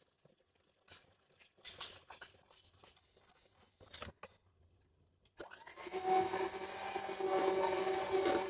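Philips electric hand mixer running, its beaters working grated cheese into creamed butter, with a steady motor whine that starts about five seconds in and stops suddenly at the end. Before it, a few knocks and rattles as the mixer is handled.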